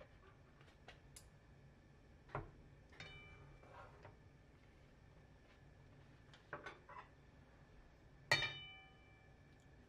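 Metal tongs clinking and tapping against the side of a pot while bagels are turned in the boiling water: a few light knocks, the loudest a ringing clink near the end.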